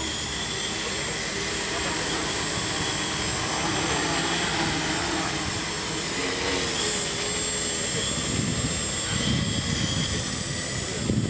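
Electric motors and propellers of a large eight-rotor octocopter running with a steady high whine as it lifts off. A gusty low rumble comes in about eight seconds in.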